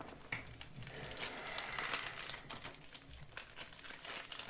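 Packaging being handled: irregular crinkling and rustling with scattered small crackles.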